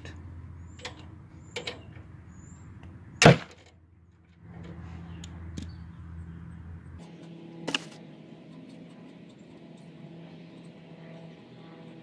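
A ratchet wrench loosening the oil drain plug on a snow thrower's engine. There are a few sharp metallic clicks, the loudest about three seconds in, and then quieter handling as the plug is turned out by hand.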